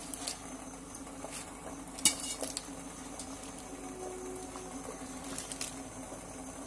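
Handfuls of fresh spinach leaves dropped into a steel pot of boiling water, with soft rustling, patter and light knocks against the pot. There is one sharper knock about two seconds in, over a steady low hum.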